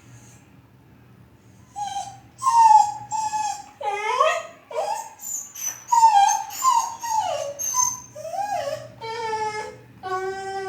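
A dog whining and howling in a run of a dozen or so short, high calls that slide up and down in pitch, starting about two seconds in.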